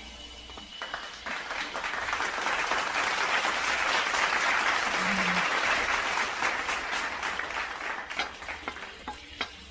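Ginger strips frying in hot oil in a stainless steel wok: a crackling sizzle that swells about a second after they go in and eases off near the end. Near the end a wooden spatula stirs them.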